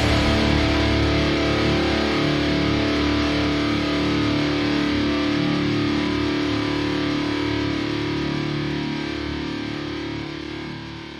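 Background rock music with distorted electric guitar, holding steady and then fading out near the end.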